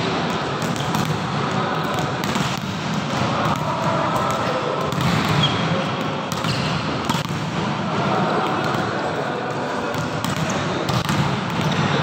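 Volleyballs being spiked, with several sharp slaps of ball on hand and ball on court floor a second or more apart, echoing in a large indoor hall over a steady background din.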